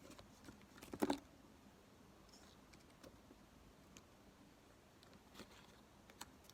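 Quiet room with a few faint clicks and taps of small objects being handled, the most distinct one about a second in.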